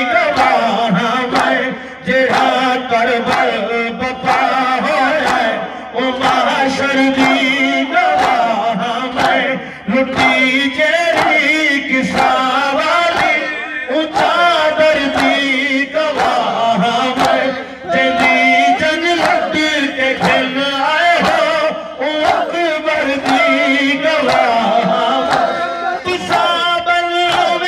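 A man singing a Punjabi noha, a Shia lament for Muharram, into a microphone in phrases that waver and bend, with men around him joining in the chant.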